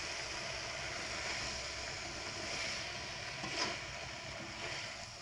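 Beef and onion masala sizzling in a metal pan while it is stirred with a spatula, with one sharper clink of the spatula against the pan about three and a half seconds in.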